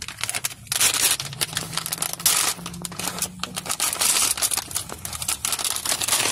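Glossy plastic squishy blind bag crinkling and crackling as it is handled and pulled open.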